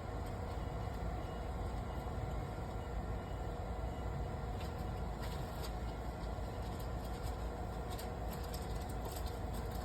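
Matsumoto Kikai PS-4F-1 welding positioner's geared drive running steadily: a continuous low hum with a faint whine, and a few light ticks toward the end.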